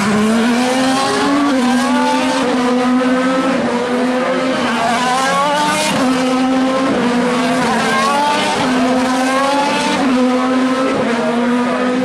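IndyCar race cars' 2.2-litre twin-turbo V6 engines running hard on track, the pitch climbing and dropping back again and again as they accelerate through the gears.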